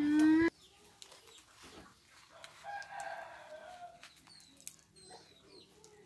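Chickens calling: a short, loud call at the very start, then a longer call about two and a half seconds in that fits a rooster crowing. Faint high chirps come later.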